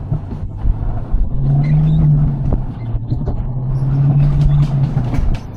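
Alpine coaster cart running along its rail track with a low rumble. A steady low hum sets in about a second in and fades near the end, with light clicks and rattles on top.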